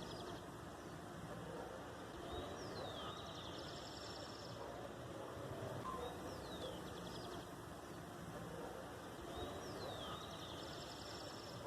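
A small bird singing the same short phrase four times, roughly every three and a half seconds: a high descending whistle followed by a brief buzzy trill. A steady outdoor background hiss runs beneath it.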